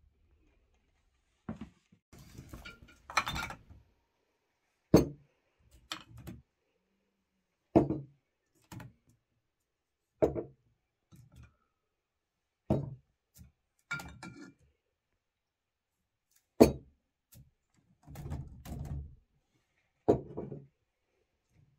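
Glass jars of home-canned preserves set down one after another on a wooden table, each landing with a thunk and a light clink of glass and metal lids, about every second or two.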